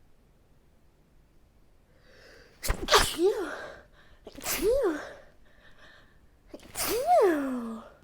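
A person sneezing three times in a row: allergy sneezes brought on by the change of seasons. Each sneeze is a sharp burst followed by a voiced cry that rises and then falls in pitch, with a breath drawn in before it. The first sneeze is the loudest.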